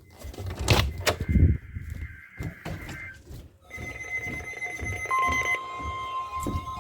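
Emergency Alert System test signalling: a couple of sharp clicks about a second in, then electronic data-burst tones and steady alert tones. A lower tone joins about five seconds in.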